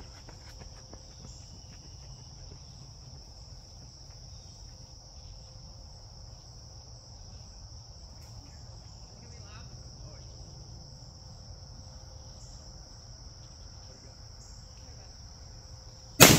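A steady high-pitched chirring drone runs in the background, then, near the end, a single loud bang as a .50-caliber black-powder mini cannon fires a musket ball, its report trailing off over about a second.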